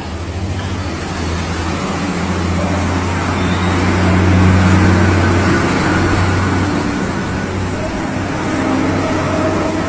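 A motor vehicle's engine running with a steady low hum, growing louder to a peak about halfway through and then easing off.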